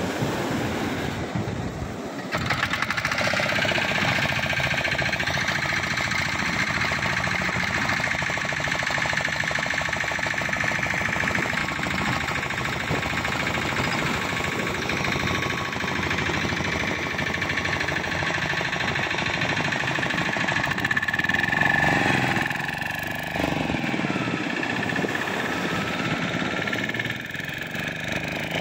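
A small long-tail outboard boat engine comes in abruptly about two seconds in and then runs steadily as the fishing boat heads out through the surf.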